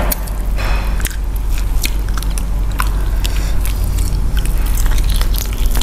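Close-miked eating sounds of roast duck being bitten and chewed, with frequent wet mouth clicks and smacks, over a steady low hum.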